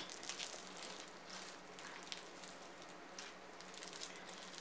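Bead-filled clear slime being squeezed and mixed by hand: a faint, irregular patter of tiny clicks and crackles as the beads press and pop against each other, with a light squish.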